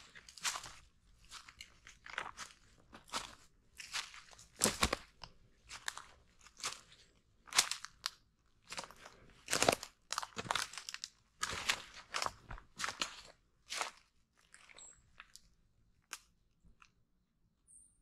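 Footsteps crunching through dry leaf litter and forest undergrowth, an irregular step every half second to a second, stopping a few seconds before the end.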